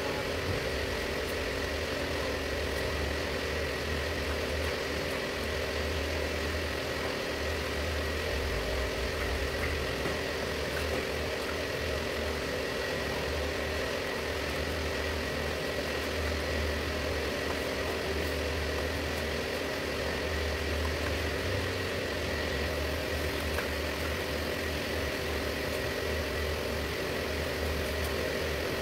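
A motor running steadily: a constant low hum with a faint steady whine above it.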